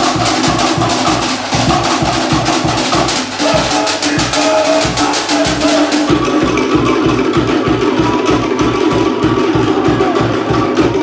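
Fast Tahitian drum music for an ote'a dance: wooden slit drums (to'ere) clatter a rapid rhythm over a steady, fast low drum beat. The sharp high clatter thins out about six seconds in while the low beat carries on.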